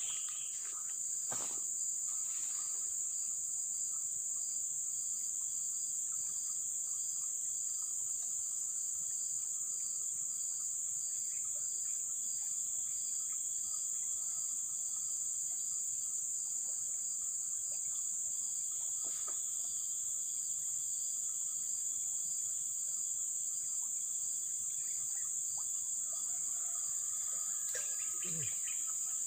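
Insects chirring in a steady, high-pitched, unbroken drone, with a fainter call pulsing evenly beneath it. A brief rustle and a few clicks come near the end.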